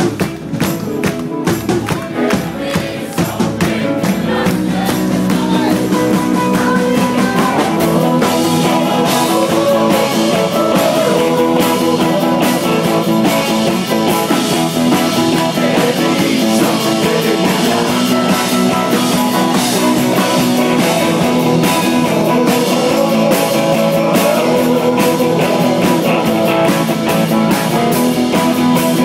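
Live rock band playing a song with strummed acoustic guitars, electric guitar, keyboard and several voices singing together; the music comes in fuller and louder about four seconds in.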